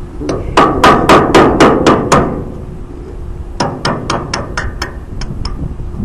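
Hammer striking a pin punch to drive the set pin out of the bill hook on a New Holland 268 baler knotter. There is a quick run of about eight loud metal strikes, roughly four a second, then after a pause about nine lighter taps.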